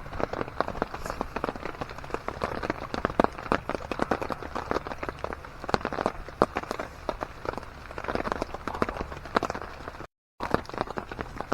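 Rapid, irregular rustling with quick taps and knocks: nylon tent and sleeping-bag fabric being handled as someone climbs out of a tent. The sound cuts out briefly near the end.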